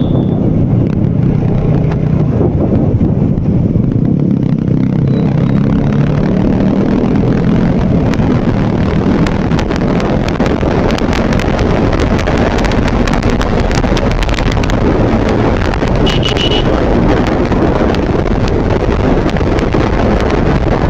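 Motorcycle riding at road speed: the engine hums under loud wind rushing and buffeting on the microphone. The engine's hum is clearest in the first few seconds, then the wind noise takes over.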